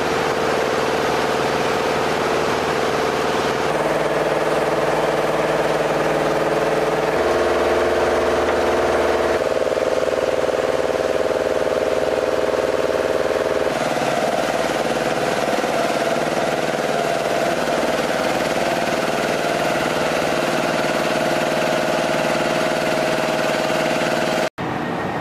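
Steady drone of an idling engine or machine, made of several level tones. Its pitch mix shifts abruptly a few times, and it cuts out for a moment near the end.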